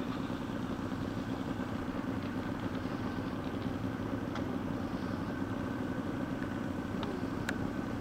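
Radio-controlled Hawker Hurricane model taxiing on tarmac at low throttle: a steady engine-like rumble with a faint steady high whine from its brushless electric motor and propeller, and a few faint ticks.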